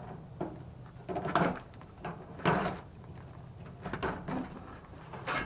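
Wire cutters snipping wiring and metal parts clattering inside a microwave oven being stripped for scrap: a series of short clicks and clatters about once a second.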